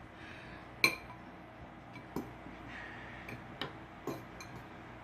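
Chopsticks and a fork clicking against noodle bowls: a handful of separate sharp clicks, the loudest about a second in, over quiet room noise.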